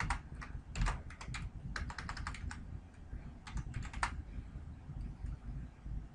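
Computer keyboard typing: quick runs of keystrokes in bursts, thinning out and stopping about four seconds in.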